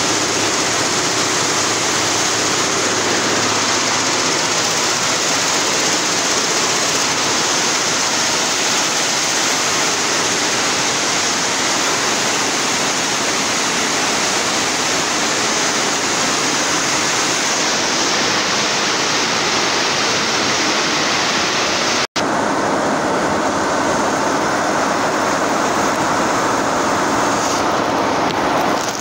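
Row of multi-head computerized embroidery machines running together, a loud, steady, dense mechanical noise, with a split-second break about three-quarters of the way through.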